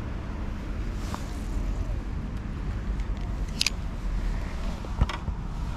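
Steady low outdoor rumble with a few sharp clicks and taps, about one, three and a half and five seconds in, from a spinning rod and reel being handled.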